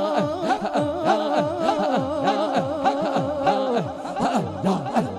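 Male naat singer holding a long, wavering note through a microphone, over a steady drum beat whose low strokes slide down in pitch. The held note breaks off about four seconds in.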